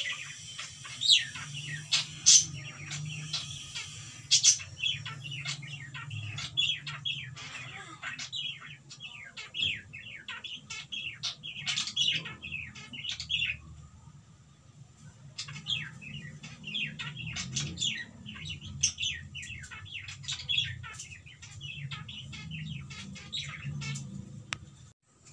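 Cockatiel chirping and chattering in quick runs of short, sliding notes, pausing for a couple of seconds about halfway through. A steady low hum runs underneath.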